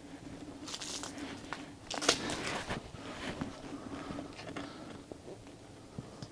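Footsteps scuffing and crunching over gritty, littered ground, with clothing rustle, in a few short bursts. A faint steady hum runs underneath.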